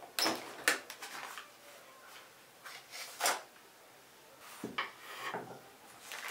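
A metal cake pan with a removable base being taken apart and set down: its ring lifted off the base and the cake moved onto a wooden board, giving a series of sharp knocks and scrapes of metal and wood with parchment paper rustling. The loudest knock comes about three seconds in.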